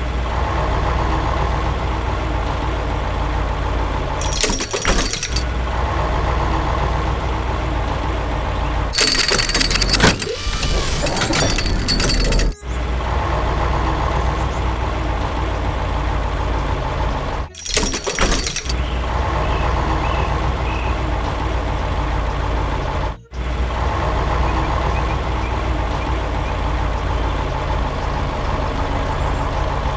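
A heavy vehicle's engine rumbles steadily and deeply. Three bursts of hissing noise break in, the longest lasting about three seconds near the middle. The sound drops out briefly a few times.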